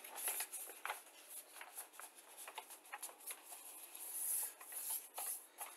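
Faint rustling of paper sheets being handled and set down, with a few light taps and clicks.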